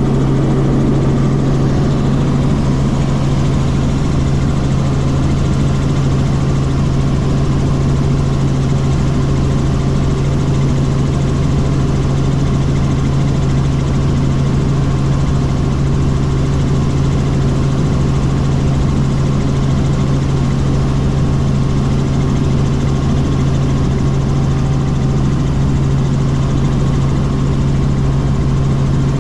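Helicopter in flight heard from on board: a loud, steady drone of engine and rotors with a strong low hum that holds unchanged throughout.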